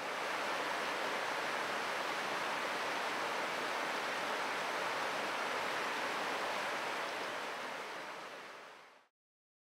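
Steady, even rushing of flowing water, with no bird calls, fading out near the end.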